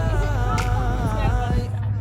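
Background music with a wavering sung vocal line, over a steady low rumble.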